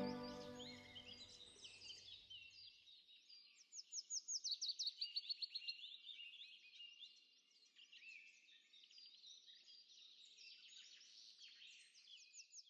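Faint songbirds singing, several at once, with a fast run of repeated high notes lasting about two seconds, about four seconds in. Music fades out at the start.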